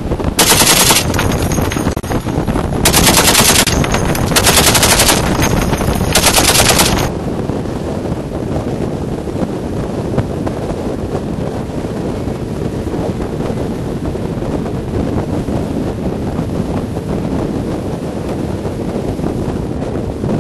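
A machine gun firing four short bursts of rapid automatic fire in the first seven seconds. After that comes a steady rush of boat engine and wind noise.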